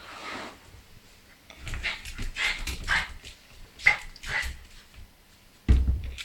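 A dog making a string of short, noisy sounds, about half a dozen in a few seconds, while playing tug-of-war, with a louder thump near the end.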